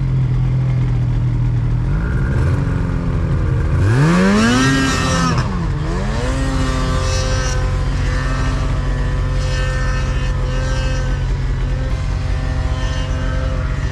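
Snowmobile engine running in deep snow, revving up sharply about four seconds in and dropping back, then holding a steady pitch.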